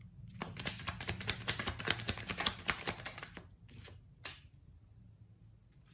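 Tarot cards being shuffled: a rapid run of card clicks for about three seconds, then two single card taps.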